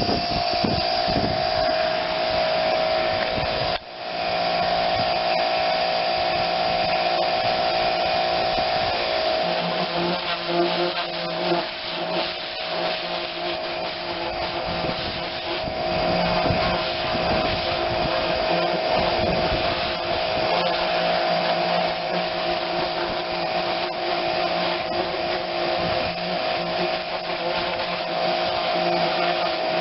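Small pressure washer running, its motor whining steadily as the spray hits the tractor. It cuts out briefly about four seconds in, then runs on.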